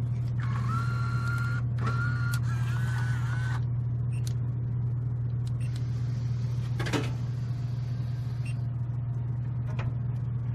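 Snack vending machine vending: its spiral-coil motor whines in three short runs, then a single knock about seven seconds in as the item drops into the tray, over a steady low hum.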